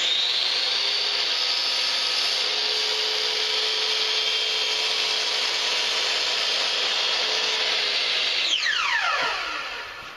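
Electric power saw switched on, running steadily with a high-pitched motor whine, then switched off about eight and a half seconds in, its whine falling in pitch as the blade spins down.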